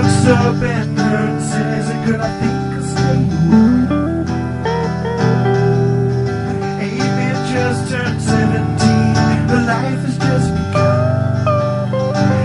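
Background music: a song played on guitar, with a singing voice.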